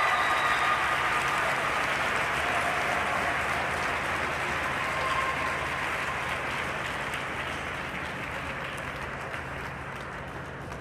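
Audience applauding after a figure skating performance, the applause slowly dying away.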